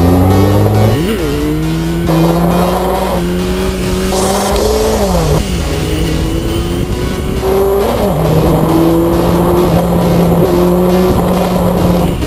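2003 Yamaha YZF-R1 inline-four engine pulling through the gears: its pitch climbs, then drops sharply at an upshift about a second in, again around the middle and again about two-thirds through, then holds steady. Electronic dance music with a steady beat plays underneath.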